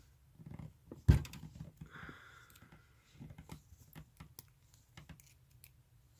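Small clicks and taps of metal tattoo machine parts being handled as the machine is taken apart, with one sharper knock about a second in and a brief faint scrape.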